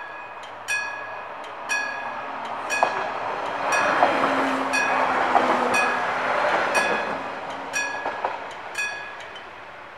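The old electric bells of a Siemens flashing-light level crossing ring at about one strike a second, each strike ringing on briefly, and stop shortly before the end. In the middle a train rolls across, its wheels clicking over the crossing.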